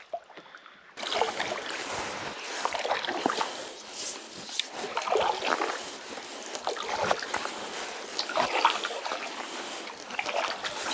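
Wooden canoe paddle working through calm river water: repeated splashes and drips from the blade close to the microphone, starting suddenly about a second in.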